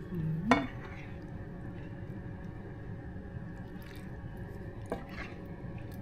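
A kitchen utensil clinking sharply against cookware twice, loudest about half a second in and again more faintly near five seconds, over a steady hum.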